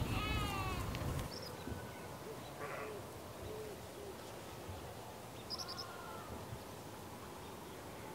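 A farm animal bleats briefly right at the start, then the yard is quiet apart from a few faint, distant bird calls.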